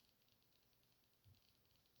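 Near silence: faint room tone, with one soft low bump just over a second in.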